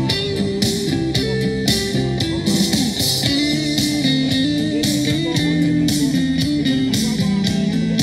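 Karaoke backing track in an instrumental passage: guitar-led music over a steady drum beat, with no singing.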